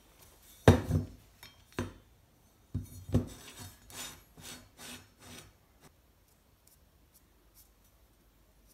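Steel motorcycle brake disc handled and set down on a cutting mat: a few sharp knocks and clanks in the first three and a half seconds, the first the loudest, then lighter clicks and rattles that thin out to faint ticks.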